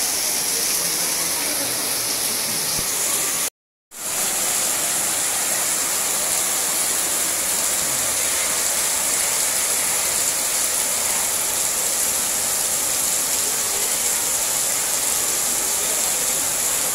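Heavy rain pouring down as a steady, even hiss. The sound cuts out completely for a moment about three and a half seconds in.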